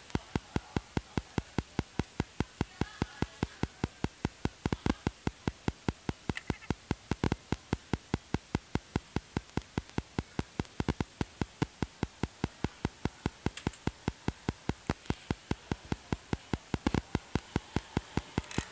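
A rapid, even clicking, about four or five sharp clicks a second, over a faint low background.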